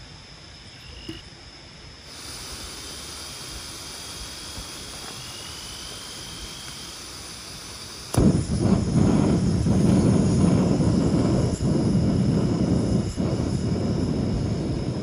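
Forest night ambience with a steady high-pitched insect drone. About eight seconds in, a sudden loud rushing rumble takes over, typical of wind buffeting the microphone.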